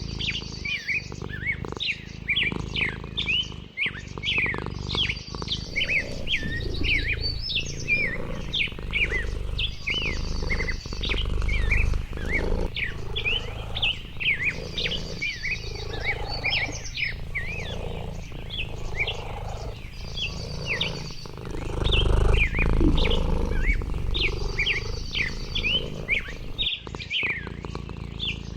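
Many birds chirping, a dense run of short chirps that sweep up and down, with a higher trill returning every few seconds. A low rumble underneath swells twice, about a third and three-quarters of the way through.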